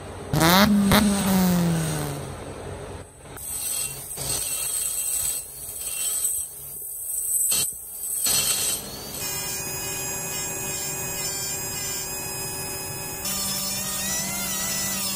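Flexible-shaft rotary grinder spinning up and winding down, then grinding in uneven bursts inside the ports of a Yamaha RX135 two-stroke cylinder. It then runs on with a steady whine.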